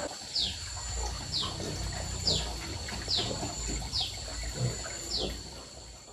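Pigs eating wet feed at a trough, with irregular chomping and slurping. A high falling chirp repeats about once a second over a steady high-pitched whine.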